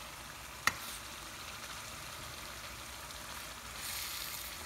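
Ackee and saltfish sizzling gently in oil in a frying pan as it cooks down, a steady hiss that grows a little louder around four seconds in. One sharp tap less than a second in.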